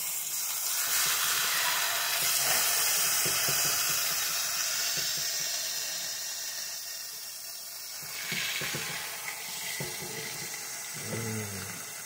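Eggs, chicken patty and bacon sizzling in a frying pan: a steady hiss, loudest in the first few seconds and easing off after. A slotted plastic spatula scrapes and taps against the pan now and then.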